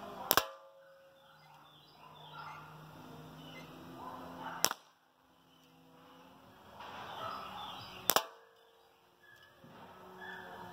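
Dan Wesson .177 CO2 pellet revolver fired three times, about four seconds apart, each shot a sharp crack; the first and third are doubled, and the first has a brief metallic ring after it.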